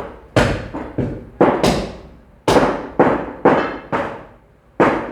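A butcher's cleaver chopping mutton: about nine heavy chops at an uneven pace, each a sharp hit that dies away quickly.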